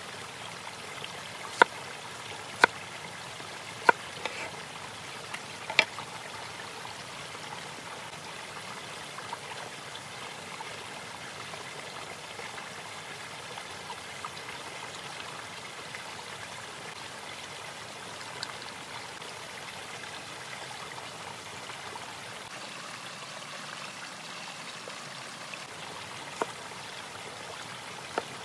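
Steady rushing of a flowing stream. Four sharp clicks come in the first six seconds and another near the end.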